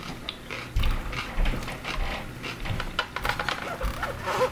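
A person chewing a mouthful of coleslaw close to the microphone, with many short, irregular wet mouth clicks.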